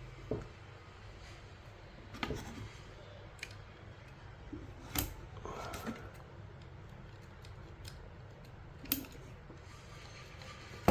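Scattered small sharp clicks and taps of hand tools handled on a workbench during desoldering, about six over several seconds, over a low steady hum.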